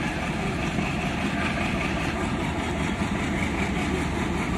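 Twin WDM3A diesel locomotives' ALCO engines running under load as the train pulls out: a steady, heavy rumble, with thick black exhaust smoke as they work.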